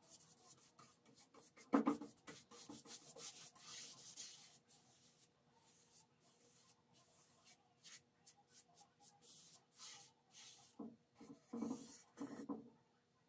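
Bristles of a flat paintbrush swishing back and forth across a wooden top in quick strokes, brushing on a wet coat of finish. There is a dull knock about two seconds in and a few more near the end.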